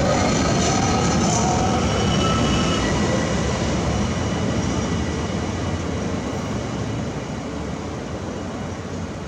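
A train running through the station, a steady rumble with thin high tones over it, slowly fading.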